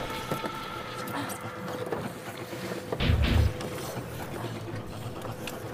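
Small boat rocking on open water, with water lapping against the hull, and a short, louder low rumble about three seconds in.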